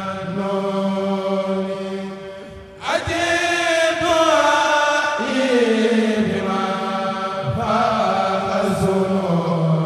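A Mouride kourel, a group of voices, chants a Senegalese Mouride khassida in unison without instruments, holding long drawn-out notes. Loudness dips briefly about two and a half seconds in, then a new phrase enters and its pitch slides downward.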